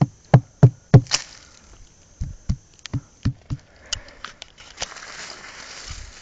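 A series of dull knocks: four loud ones in quick succession at the start, then a run of about six softer, quicker ones about two seconds in, followed by a soft rustling noise.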